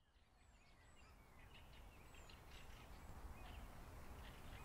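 Faint outdoor woodland ambience fading in from silence, with small birds chirping now and then.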